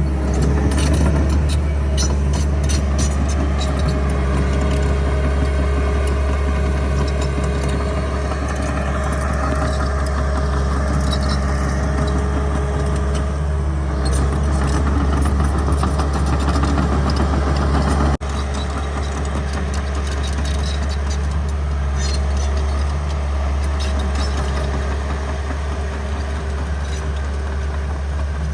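Bulldozer's diesel engine running steadily under load, with scattered knocks and cracks. Its level drops abruptly about two-thirds of the way through.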